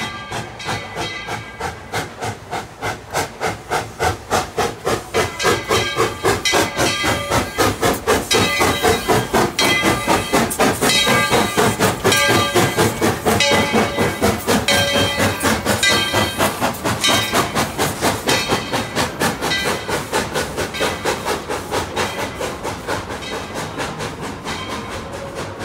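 Narrow-gauge ten-wheeler (4-6-0) steam locomotive No. 12 chuffing as it works a passenger train, its exhaust beats coming quick and even. The beats swell to their loudest as the engine passes about halfway through and fade as the coaches roll by.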